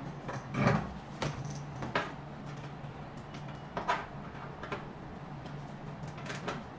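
Scattered clicks and knocks of a handpiece cable's connector being handled and pushed into a socket on a beauty machine's front panel, the loudest a dull knock just under a second in, over a low steady hum.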